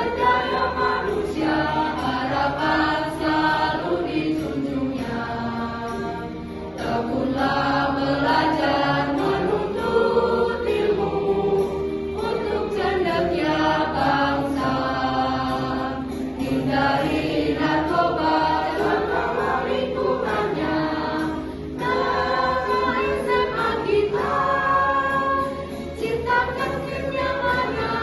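A high-school class choir singing the school's march song, with held notes and short breaks between phrases.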